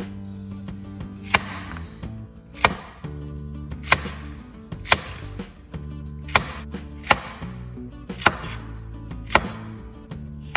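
A large kitchen knife chopping fresh okra pods into pieces on a bamboo cutting board, each cut ending in a sharp knock of the blade on the board. There are about nine chops, roughly one a second.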